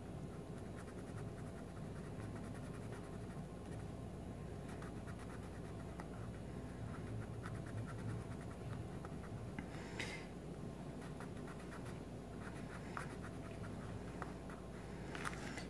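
Coloured pencil scratching on paper in quick back-and-forth shading strokes.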